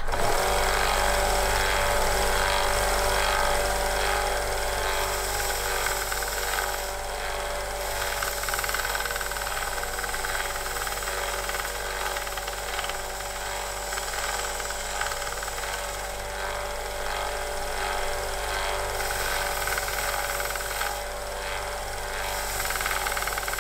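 Excel bench belt sander switched on right at the start, its motor running with a steady hum while a small metal part is held against the moving belt and sanded.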